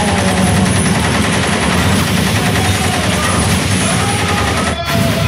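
Sustained automatic gunfire: a submachine gun firing long rapid bursts on full auto, cutting off abruptly near the end.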